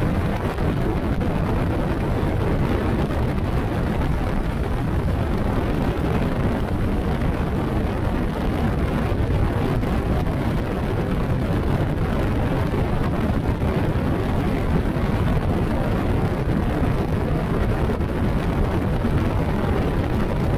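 Motorcycle on the move: a steady, even rush of wind and engine noise.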